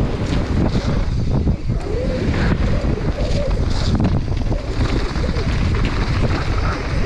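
Wind rushing over the microphone of a camera riding on a downhill mountain bike at speed, with the tyres running on wet dirt and the bike rattling and knocking over bumps throughout.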